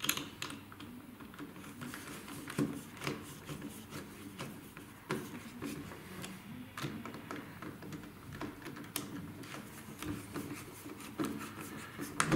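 Insulated screwdriver turning and seating screws in a dishwasher's mains terminal block, clamping down metal link bars: irregular small clicks and scrapes of metal on metal and plastic.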